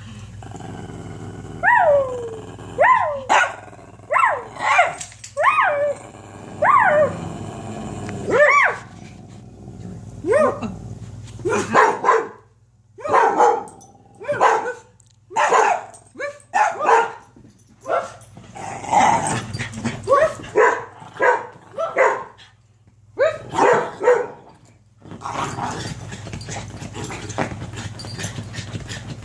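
Dogs barking excitedly. For the first several seconds the calls are short yelps that fall in pitch. After that come quick separate barks, and they stop about 25 seconds in.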